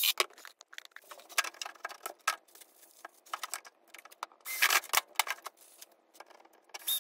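Small metal clicks and rattles of a cabinet door hinge and its screws being handled and fitted, with a brief burst from a cordless drill-driver about two-thirds of the way through and another near the end.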